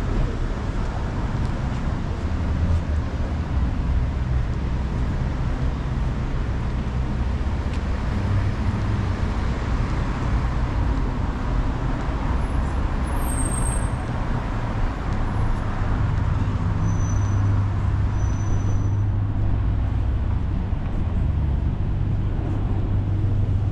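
City street traffic: a steady wash of passing cars with a low engine rumble that grows heavier in the second half.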